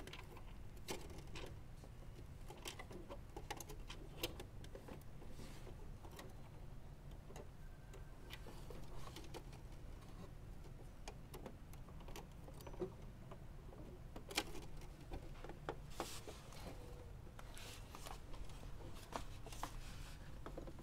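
Irregular light clicks and taps from hands handling ribbon cables and plastic parts at an opened inkjet printer's circuit board, over a faint low hum. The loudest clicks come about two thirds of the way through.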